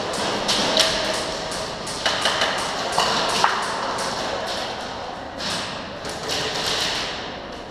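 Airsoft guns firing and BBs striking walls and props: irregular sharp cracks and pings, several in quick runs, thickest a couple of seconds in and thinning near the end.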